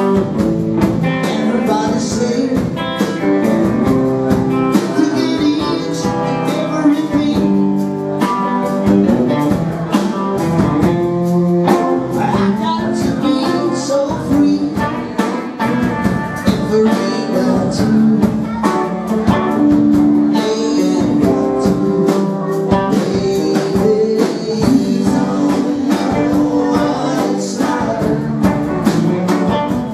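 Live rock band playing: two electric guitars, electric bass and drum kit, with a man singing into a microphone.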